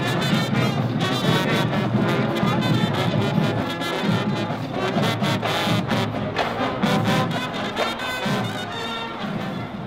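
Brass band of trombones, baritone horns and sousaphones playing a tune together over a drum beat. The music gets somewhat quieter near the end.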